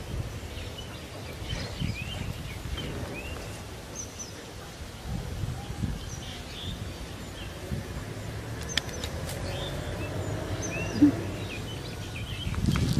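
Small birds chirping in short scattered calls over a steady low outdoor rumble, with a brief knock about eleven seconds in.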